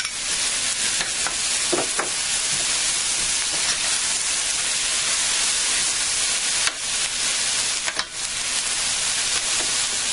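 Sliced green peppers, onions and garlic sizzling in margarine in a stainless steel frying pan, stirred with a metal spoon, with a steady hiss and a few sharp clicks of the spoon against the pan.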